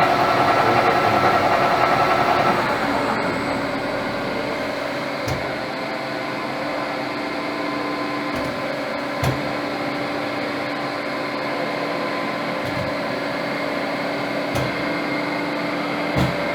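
Pinacho Mustang 200 CNC lathe running with a steady mechanical whir and several held tones. About three seconds in, the louder, higher part of the whir stops, leaving a quieter steady hum with a few faint clicks.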